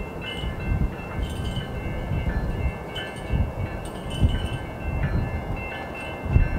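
A bell ringing, struck about once a second, over the low rumble of an approaching freight train's diesel locomotive.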